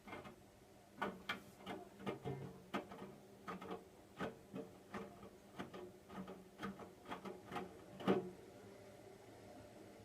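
Hotpoint washing machine drum turning during the wash, the wet laundry tumbling over with a run of soft thuds, about two a second. The thuds stop after a louder one about eight seconds in as the drum pauses, leaving only a faint steady hum.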